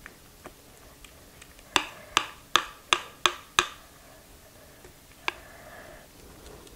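Six quick, sharp taps with a short ring, about two and a half a second, then one more a couple of seconds later: the mixing bowl and spatula knocking together as thick cake batter is scraped out into a glass pie plate.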